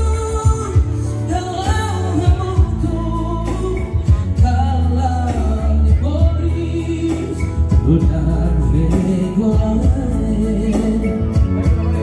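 Amplified music played through a PA sound system at a sound check: a voice singing a melody over keyboard accompaniment, with a strong steady bass.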